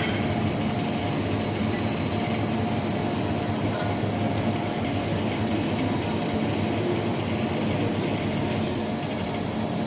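A steady mechanical hum with a faint low drone, unchanging throughout, like a fan or air-conditioning unit running.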